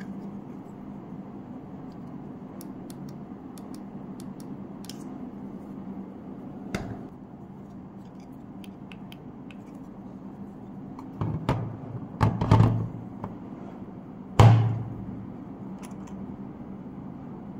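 Hard plastic DeWalt battery pack handled with small clicks and knocks, then several knocks and one loud plastic thunk about fourteen seconds in, as the battery is slid onto a DCB115 charger and seated. A faint steady hum runs underneath.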